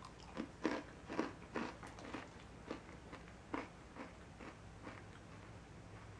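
Mouth crunching and chewing a bite of Koska Susam Krokan, a hard Turkish sesame brittle: a run of crisp crunches about two a second, growing fainter after about four seconds.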